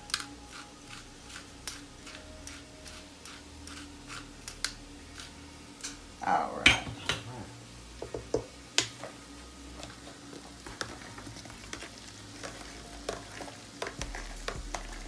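Metal potato masher stirring and mashing thick mashed potatoes in a stainless steel pot, with repeated clicks and knocks of metal against the pot, and a louder clatter about six and a half seconds in.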